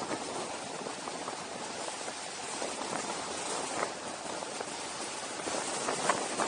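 Wind rushing over the camera microphone during a fast descent: a steady rough hiss with a couple of faint brief crackles.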